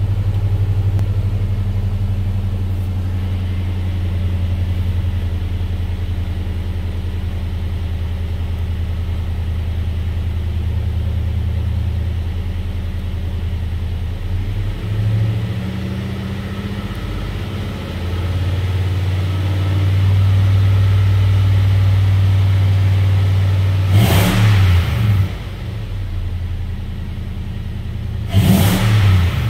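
2005 Nissan Armada's V8 engine idling steadily just after starting. It is briefly revved twice near the end, a few seconds apart.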